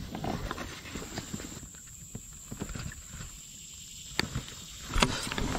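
Light, irregular taps and knocks from handling a caught bass on a plastic measuring board aboard a kayak, with a sharp click about four seconds in and louder knocks near the end.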